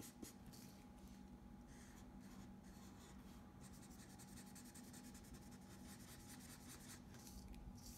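Felt-tip marker scratching across paper in many quick, short strokes as an area is coloured in, faint, over a steady low hum.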